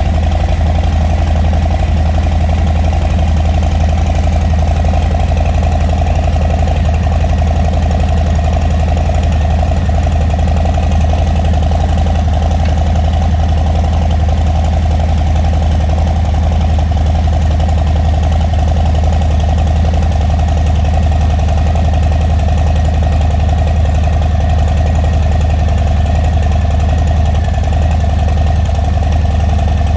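Harley-Davidson Milwaukee-Eight V-twin idling steadily through a newly fitted Bassani Road Rage III 2-into-1 stainless steel exhaust, on its first run after the install while the new pipes' finish cures.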